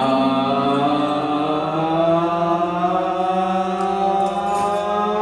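Voices holding one long, drawn-out 'Yaaam' of a yam seng toast, sustained at a steady pitch before the final 'Seng!'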